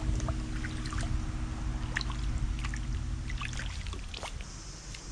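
Water splashing and trickling as a shot fish is hauled out of a shallow canal on a line, with scattered small clicks and knocks of handling. Under it, a held music chord stops about three and a half seconds in.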